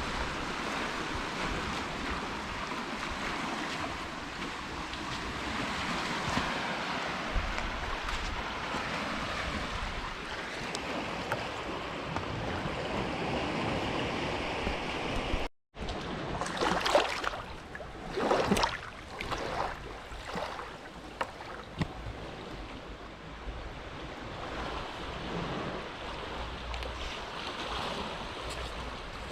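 Small, gentle waves lapping on the shore of a calm inlet, a steady wash of water with some wind rumble on the microphone. The sound drops out for an instant about halfway, after which a few sharper splashes come through.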